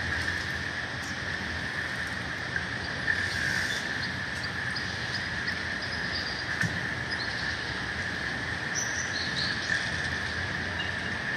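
Steady harbour ambience at a ferry pier: a low rumble under a constant high-pitched hum, with scattered light clicks and a few short high chirps.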